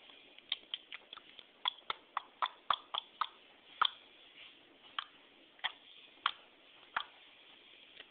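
A person making a series of sharp clicking noises, about twenty irregular clicks. They come quickly through the first few seconds, then thin out to single clicks about every half second to second, stopping near the end.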